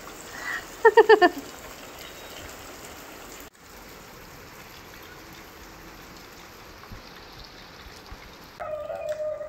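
Steady rain falling. About a second in, a quick run of four short high-pitched sounds cuts through it, and a voice starts near the end.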